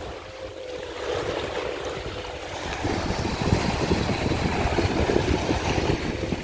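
Wind buffeting the microphone, stronger from about three seconds in, over small waves lapping on a sandy shore, with a faint steady hum from a motorboat out at sea.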